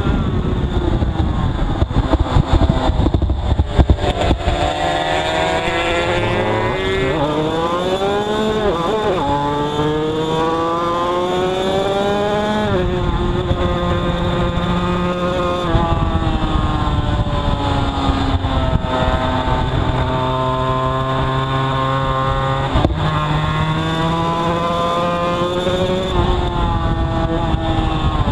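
Two-stroke road-racing motorcycle engine heard from onboard at speed, its revs climbing hard again and again, then dropping sharply or levelling off, over a low rush of wind on the microphone.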